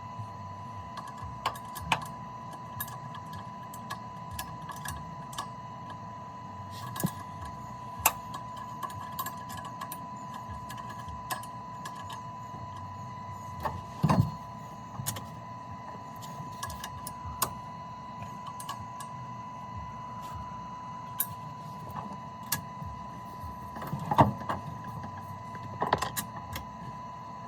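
Irregular clicks, clinks and knocks of hand tools on metal parts during work under a car, with a few heavier knocks, over a steady high-pitched tone.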